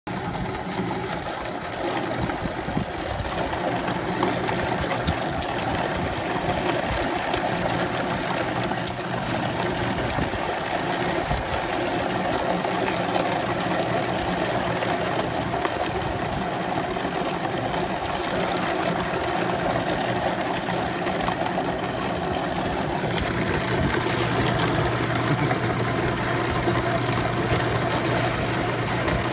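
A machine running steadily, with a low hum that grows stronger near the end.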